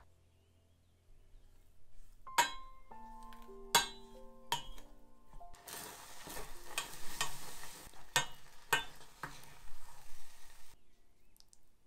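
Wooden spoon stirring simmering oatmeal in a stainless steel saucepan: a bubbling hiss with repeated knocks and scrapes of the spoon against the pan, which stops suddenly near the end.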